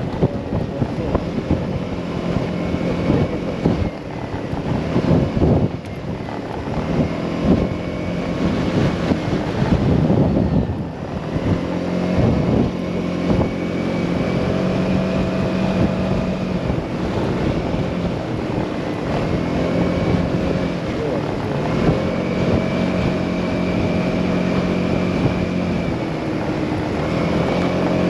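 Motorcycle engine running at road speed, its pitch rising and falling as the throttle changes, with heavy wind buffeting on the microphone, gustiest in roughly the first ten seconds and steadier after that.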